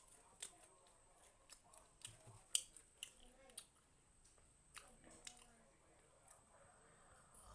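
A person chewing and biting food close to the microphone: faint, irregular mouth clicks and crunches, the sharpest one about two and a half seconds in.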